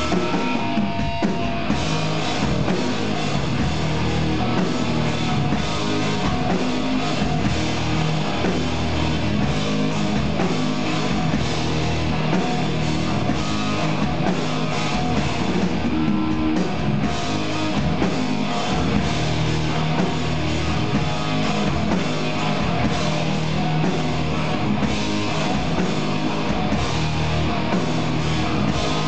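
A hardcore punk band playing live at full volume: distorted electric guitar and bass over a drum kit, in one dense, unbroken wall of sound.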